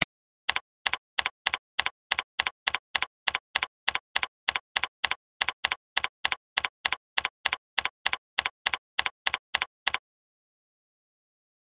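A single mouse click, then a steady run of keyboard keystroke clicks, about three a second, as a line of text is typed one letter at a time. The typing stops shortly before the end.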